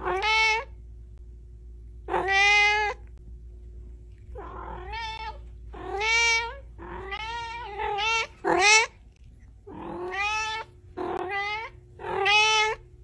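A domestic cat meowing over and over: about ten drawn-out meows, some coming in quick pairs, with short pauses between them.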